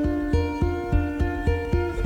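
Background music: plucked acoustic guitar in a steady run of notes, about three a second, over a low bass pulse.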